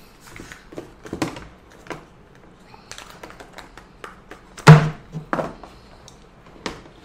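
Handling noise from unpacking a laptop box: soft taps and rubbing as a coiled power cable in a cardboard sleeve is worked out of the box's moulded tray, with one louder thunk a little under five seconds in.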